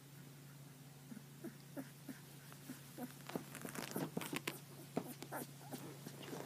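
A newborn husky puppy gives a series of short, faint squeaks. From about three seconds in, louder rustling and handling noise of the bedding and phone joins them.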